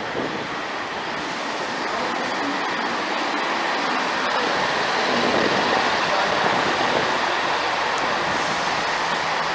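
A Northern diesel multiple unit running into the platform and passing close by: a steady noise of wheels on rail and underfloor engines that builds a little over the first few seconds, then holds.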